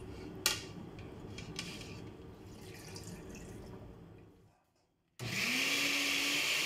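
Faint handling noise with a light knock as cooked bell peppers go into the blender jar. About five seconds in, a countertop blender motor starts, its hum rising quickly in pitch, then runs steadily as it grinds the peppers with a little water.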